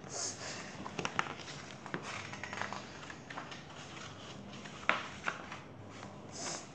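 Pages of a paperback picture book being riffled and flipped by hand: irregular paper rustling with sharp crackling clicks, a louder snap about five seconds in, and a short swish of pages at the start and again near the end.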